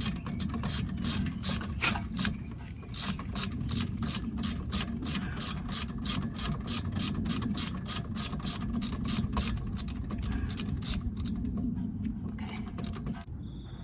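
Hand ratchet wrench clicking steadily, about three clicks a second, as a socket backs out a rear brake caliper guide-pin bolt; the clicking slows and stops near the end.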